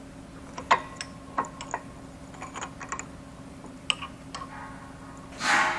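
Irregular light clicks and knocks of metal burner parts and pipe fittings being handled and fitted, over a steady low hum, with a short rushing noise near the end.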